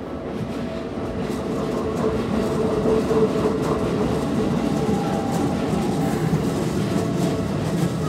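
Keikyu commuter train running through a level crossing, growing louder over the first couple of seconds as it arrives, then a steady rumble with wheels clattering over the rail joints. The crossing's warning signal keeps sounding with it.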